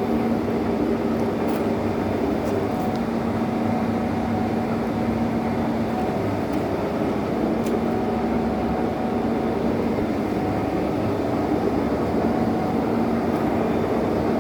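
1M63 heavy screw-cutting lathe running steadily, its headstock gearing giving a constant hum with a steady gear tone. A few faint ticks sound over it.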